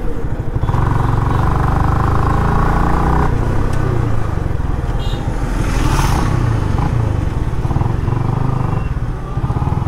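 Yamaha R15 V3 sport bike's 155 cc single-cylinder engine running at a steady cruise, heard from the rider's seat, with road noise.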